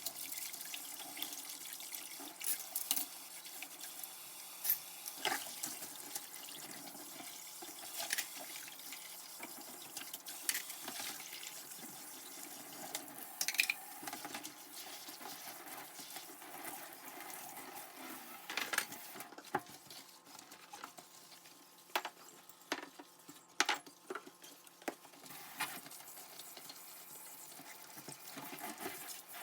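Dishes being washed by hand at a kitchen sink: water running from the tap, with irregular sharp clinks of dishes knocking against each other and the sink.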